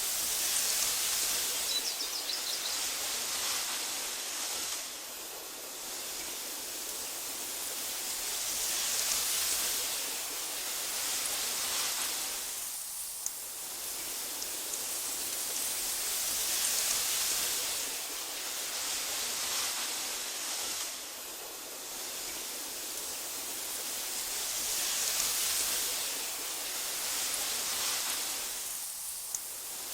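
Steady hiss of wind through tall meadow grass, swelling and easing every few seconds, with a brief lull about every eight seconds.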